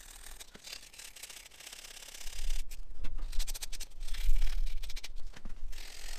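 Emery tape rubbed back and forth on the tractor's steel chassis, a repeated scratchy scraping, cleaning the metal for an earth cable connection. From about two seconds in a low rumble comes in underneath.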